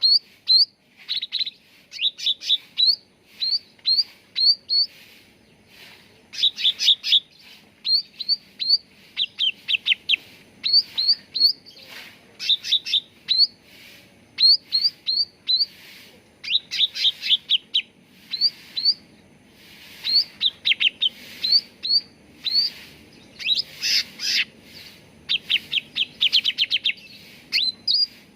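Cucak ranting songbird calling: short, sharp, upward-flicking whistled notes in quick runs of three to six, repeated with brief pauses, with a denser burst of notes near the end.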